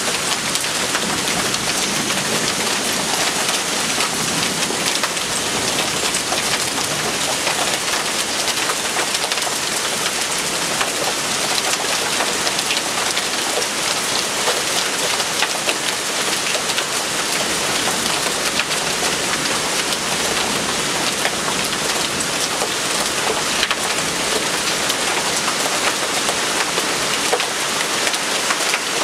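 A downpour of rain mixed with hail pelting a balcony: a steady, dense hiss with many small sharp ticks of hailstones striking the concrete floor and the board along the railing.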